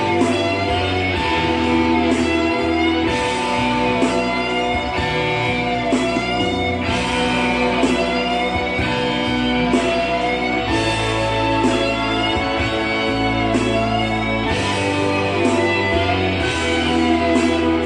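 Rock music: a lead electric guitar plays long sustained notes with bends and wide vibrato over a steady band backing of bass and keyboards.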